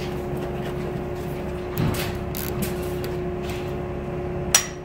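Light metal handling noises and faint clicks on the engine over a steady background hum, then a sharp metallic click near the end as the cam timing tool slides into place on the BMW S1000RR's camshaft.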